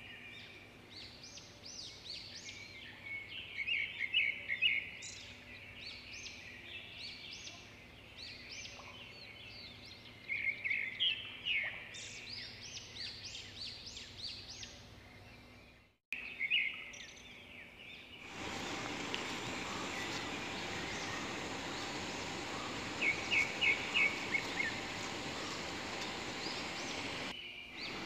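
Small birds chirping and trilling in repeated short calls. About halfway through the sound briefly drops out, and after that a steady hiss sits under the bird calls.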